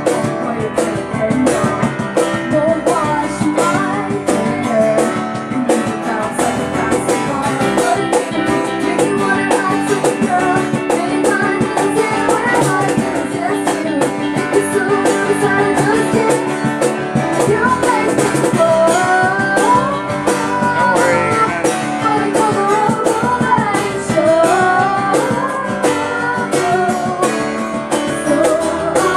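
A band playing a song live: a woman singing into a microphone over a strummed acoustic guitar and a keyboard.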